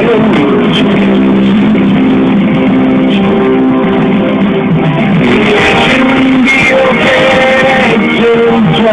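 Live band playing an instrumental passage, held notes and chords at a steady loud level.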